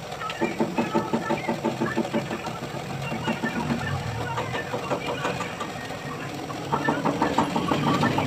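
A motor running with a fast, even pulse. The pulse is strong at first, eases in the middle, and grows stronger again near the end.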